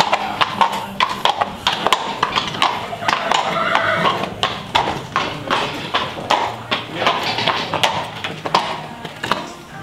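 A horse's hooves clip-clopping at a walk on a brick stable-aisle floor, in an irregular run of sharp knocks.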